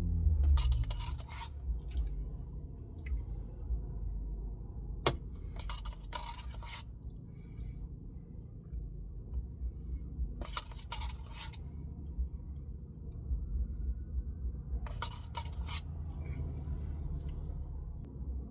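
A spoon scraping and clinking in an ice cream cup in four short clusters of sharp clicks, with a low rumble of handling noise underneath.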